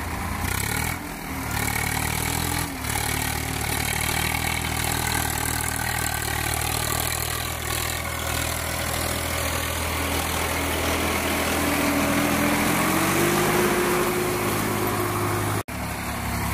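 Swaraj 855 tractor's diesel engine working under load as it hauls a loaded trolley out of soft ground. The engine runs steadily, revs up about twelve seconds in, and cuts off abruptly near the end.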